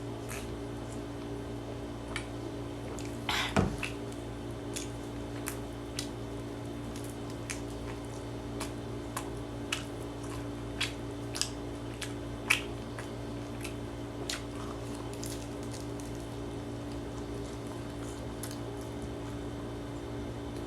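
Someone chewing a mouthful of rice ball close to the microphone: scattered mouth clicks and smacks, roughly one a second, with the loudest cluster about three and a half seconds in, over a steady low hum.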